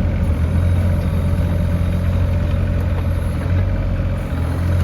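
Diesel engine of an AGT NT30 mini excavator running steadily.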